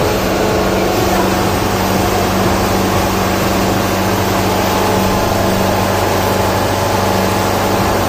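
Diesel engine of a ready-mix concrete truck running steadily with an even hum while it discharges concrete down its chute.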